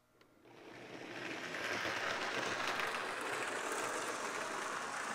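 Bachmann HO-scale James model steam locomotive running on its track with a flat car in tow: a steady whir and rolling rattle of the small electric motor and wheels that builds up over the first second or so and then holds.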